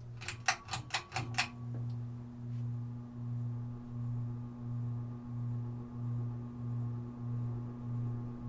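Harbor Breeze Macon Bay ceiling fan motor humming, the low hum swelling and fading in a steady rhythm, about once every half second or so. Near the start there is a quick run of about six clicks, after which a second, higher hum tone joins and holds.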